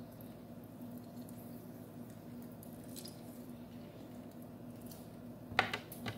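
Lemon half squeezed by hand, faint squelching and juice dripping, over a steady low hum. A sharp knock about five and a half seconds in as the lemon is set down on a plate.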